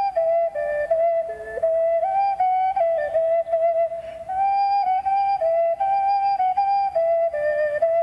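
Solo wooden ethnic flute playing a slow melody. Its notes are held for up to about a second and move in small steps within a narrow range, with quick grace-note flicks between them.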